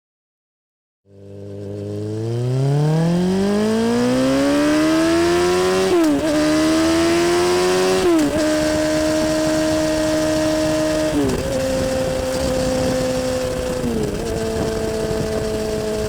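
BMW S1000-series inline-four sportbike engine accelerating, its pitch rising steadily for several seconds after starting about a second in. It then goes through several quick gear changes, each marked by a short dip in pitch, and holds a steady engine speed in between.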